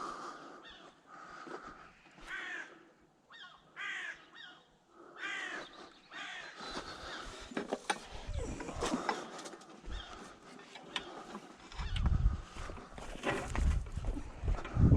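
A crow cawing several times in the first half, then scattered knocks and low thumps.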